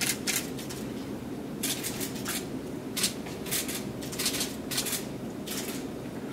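Camera shutters from press photographers clicking in quick bursts, clusters of sharp clicks every half second to a second, over a steady low background hum.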